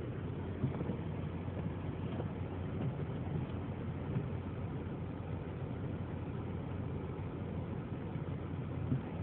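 Steady hum of a car's engine and road noise heard from inside the cabin, as the car creeps along in slow traffic.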